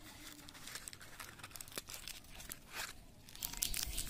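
Small cardboard box being handled and opened by hand: faint rustling and scraping with small clicks, then crinkling of a small plastic packet of screws near the end.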